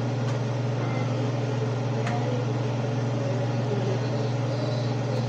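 Steady low hum of a running fan motor, with a few faint clinks of a utensil against the pot as boiled shrimp are scooped out into a bowl.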